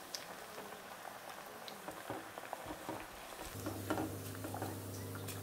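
Taro root pieces deep-frying in hot peanut oil: a soft, steady bubbling sizzle with small crackles. A steady low hum comes in about three and a half seconds in.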